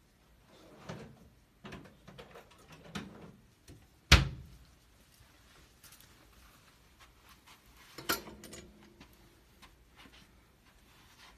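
Handling noises of objects being picked up and set down: a few soft knocks and rustles, then a sharp knock about four seconds in and another about eight seconds in, the second with a short ring after it.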